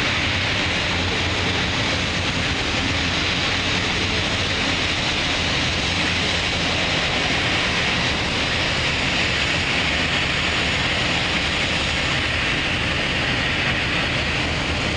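Vietnam War Swift boat's twin diesel engines running steadily as it cruises past: a low hum under a steady hiss.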